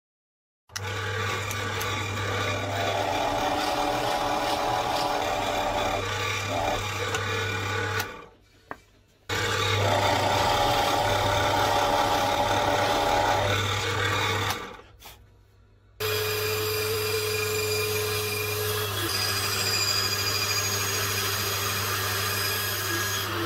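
Electric woodworking machines running and cutting plywood in three short takes, each with a steady motor hum and whine, split by two brief near-silent breaks. The first two takes are a drill press working a plywood piece. The last, from about two-thirds of the way in, is a shop-built plywood band saw cutting a plywood blank.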